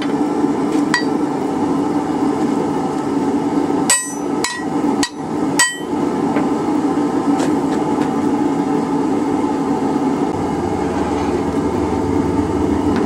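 Hot rebar bar bounced end-down onto a steel railroad tie plate to upset (thicken) its end: four sharp metallic clanks with a short ring, about two a second, a few seconds in, after one lighter knock about a second in. A steady drone runs underneath.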